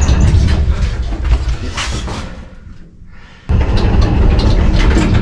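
Steady low rumble of a moving vehicle with road noise, heard from inside. It fades away about two and a half seconds in, then cuts back in suddenly at full loudness a second later.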